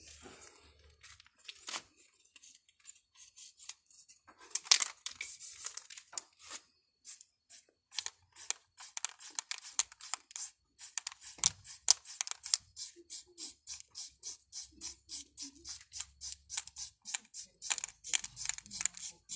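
Aerosol spray paint can hissing as the nozzle is pressed and released. There is one longer hiss about five seconds in, then many short spurts, several a second, through the second half.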